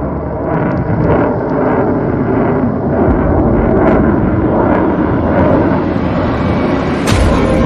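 Rocket launch: the engine's exhaust noise runs loud and steady, broken by repeated sharp crackles, with a stronger burst of crackle about seven seconds in.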